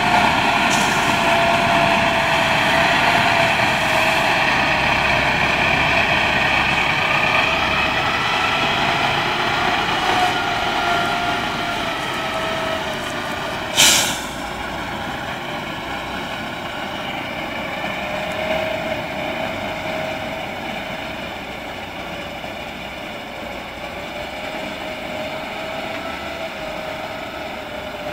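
Tatra 148 fire tanker's air-cooled V8 diesel running steadily as the truck moves slowly, with a thin wavering whine over the engine note. About halfway through there is a brief sharp hiss, and the sound then slowly fades as the truck pulls away.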